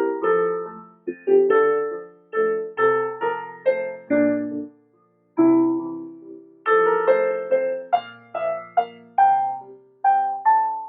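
Solo piano music: a slow melody of struck notes and chords, each ringing and dying away, with a short pause about five seconds in.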